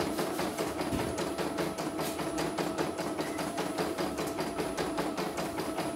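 Computerized single-needle embroidery machine stitching a design, its needle and hoop drive tapping in a fast, even rhythm.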